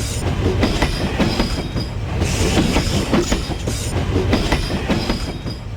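Train running along the track, its wheels clattering over rail joints in rapid clicks over a heavy rumble, with a faint high whine coming and going.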